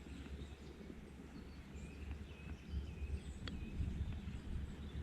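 Outdoor stream-side ambience: a steady low rumble with a few faint bird chirps and a single sharp click about three and a half seconds in.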